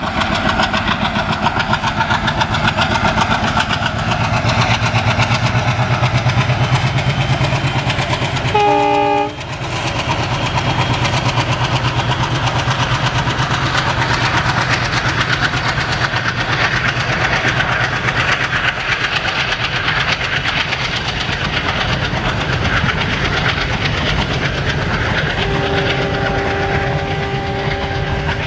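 Rebuilt ALCo WDM-3A diesel locomotive chugging hard as it accelerates past, with a brief horn note about nine seconds in. The coaches follow with a rolling clickety-clack.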